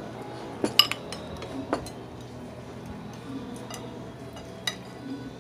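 Metal spoon and fork clinking against a glass bowl and a plate while food is served and mixed: a quick cluster of clinks about a second in, another a second later, and a single one near the end.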